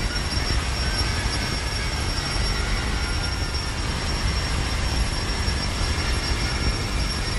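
Live electronic feedback noise: a dense, unbroken wall of harsh noise with a steady high whine over a heavy low rumble.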